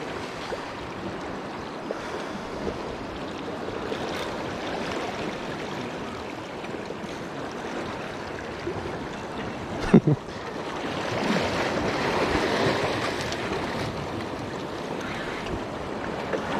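Small waves washing over the rocks at the water's edge, with wind buffeting the microphone; a wave surges louder past the middle, just after one brief sharp sound.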